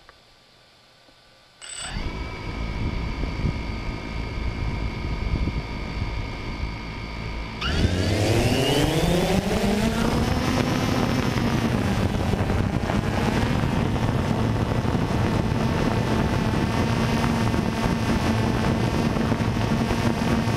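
DJI Phantom 2 quadcopter's electric motors and propellers: about two seconds in the motors start and idle with a steady whine, then near eight seconds in the pitch rises sharply as the throttle opens and the drone lifts off, settling into a loud, steady buzz as it climbs.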